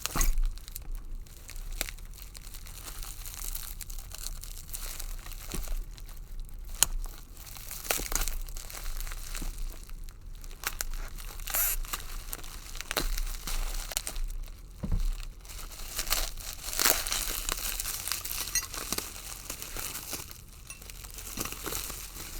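Packing material being torn and crumpled by hand as a wrapped item is unwrapped, in irregular rustling and crackling bursts.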